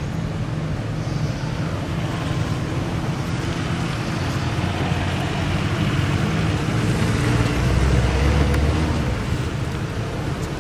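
Steady low rumble of road traffic, which swells about eight seconds in as a vehicle passes, then eases off.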